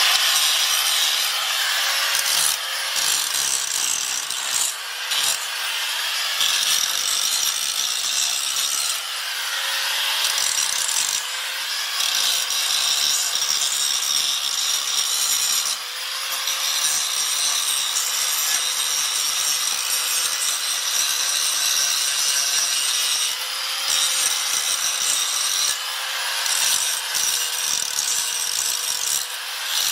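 Grinder grinding the rust off the edges of a drag bar's metal teeth to clean them for welding. It runs steadily with a few short dips as it is lifted from one edge to the next.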